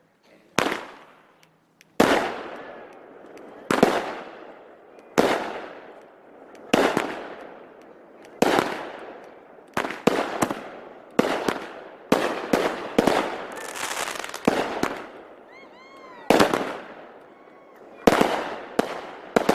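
Fireworks going off in a steady series of sharp bangs, one every second or two, each trailing off in a long echoing rumble. The bangs come faster and overlap in a denser flurry about halfway through.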